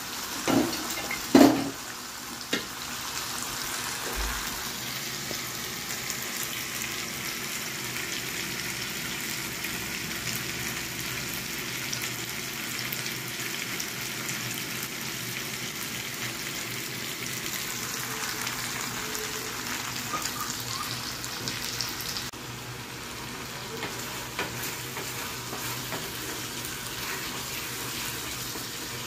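Sliced onions and tomatoes sizzling in hot oil in a frying pan, a steady frying hiss. A couple of loud knocks come in the first two seconds, and a wooden spatula stirs the mixture near the end.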